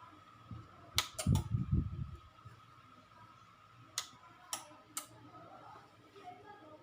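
Sharp clicks and handling noise: three clicks close together about a second in with a low rumble, then three more clicks about half a second apart. A faint steady high tone runs underneath.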